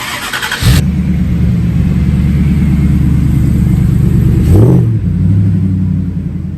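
A vehicle's engine starting up: a short noisy burst, then it fires less than a second in and settles into a steady low idle, with one quick rev around four and a half seconds in.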